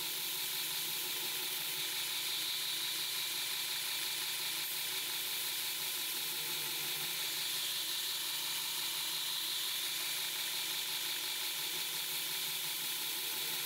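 Belt grinder running with a Damascus steel blade held against the belt for the final bevel grind: a steady grinding hiss over a faint motor hum.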